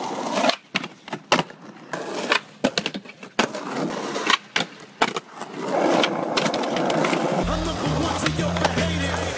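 Skateboard no-comply tricks: a string of sharp deck clacks and wheel landings over the first five seconds, then wheels rolling on pavement. Music with a heavy bass line comes back in about seven and a half seconds in.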